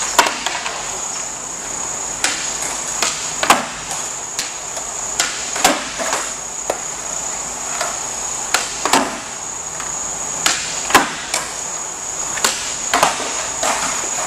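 Skateboards popping and landing on a concrete floor: sharp cracks of tails snapping down and boards slapping onto the concrete, often in pairs about half a second apart, every second or two. A steady high-pitched whine runs underneath.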